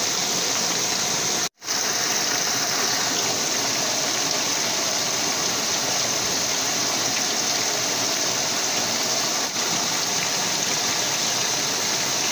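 Steady rushing of flowing river water, broken by a brief dropout about a second and a half in.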